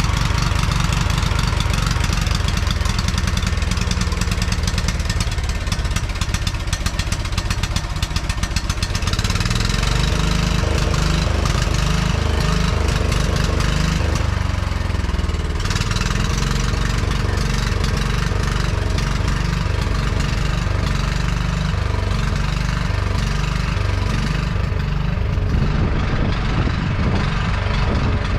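A 1971 John Deere 140 H1 riding lawn mower's engine runs steadily in an even firing rhythm. Its note shifts about a third of the way in and again around halfway.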